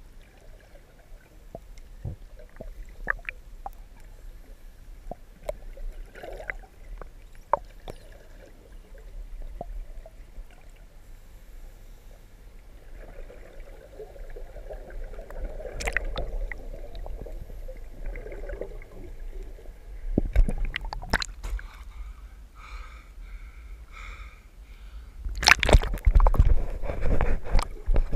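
Underwater sound of a scuba diver breathing through a regulator: exhaled bubbles gurgling out in bursts every few seconds, the loudest near the end, over a low rumble and scattered clicks.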